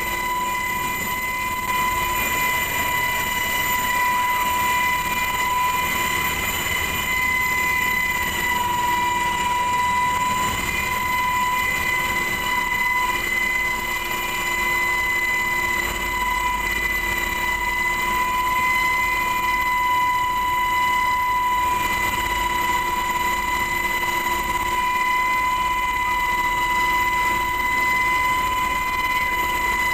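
HH-60 Pave Hawk helicopter heard from inside its cabin at the open door: steady rotor and engine noise with a constant high whine.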